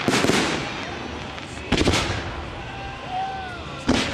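Aerial fireworks shells bursting: three loud booms about two seconds apart, each followed by a short fading echo. A faint whistling tone rises and falls about three seconds in.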